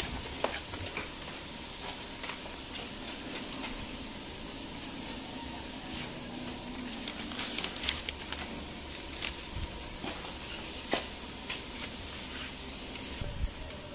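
Steady background hiss with a faint low hum, and a few light knocks scattered through.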